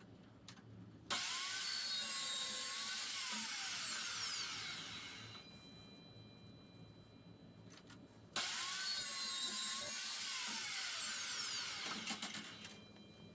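An electric metal-cutting chop saw cutting steel flat bar, twice. Each time the motor starts abruptly, runs at speed through the cut, then spins down with a falling whine.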